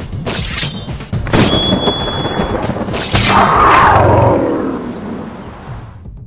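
Fight-scene sound effects over soundtrack music: several sharp hits, a high ringing tone held for about a second, then a loud falling roar that fades out near the end.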